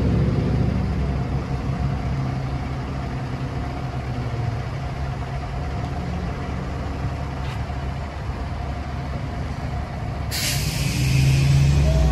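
Fire engine's heavy engine running, getting louder near the end as it draws close. About ten seconds in comes a sharp air-brake hiss that lasts about a second and a half.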